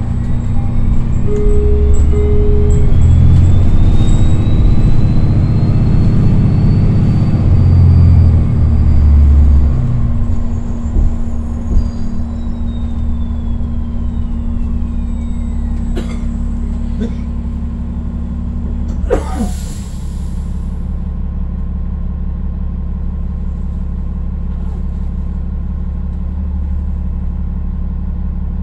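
Inside a New Flyer XDE40 diesel-electric hybrid bus: the Cummins L9 straight-six diesel runs loud while the HybriDrive electric drive whines, rising in pitch as the bus pulls away and falling as it slows. About two-thirds of the way through there is a short hiss of air from the brakes as the bus stops, then a steady, lower drone while it stands.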